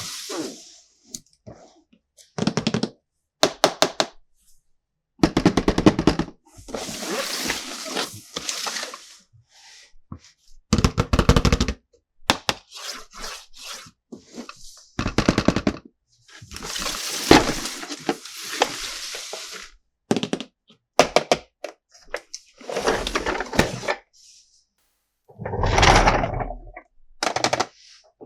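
Hard plastic toy parts being handled: clusters of sharp clicks and rattles, with several longer stretches of rustling, each separated by short silences.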